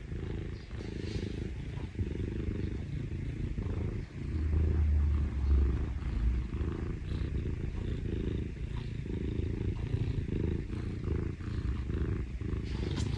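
Domestic cat purring steadily, a low pulsing rumble, the affectionate purr it gives when it wants attention. It swells louder for a couple of seconds about four seconds in.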